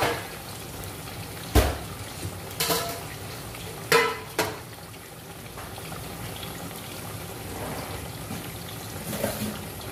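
Eggplant slices sizzling in hot oil in a wide frying pan, a steady hiss, with a few short sharp knocks about one and a half, three and four seconds in.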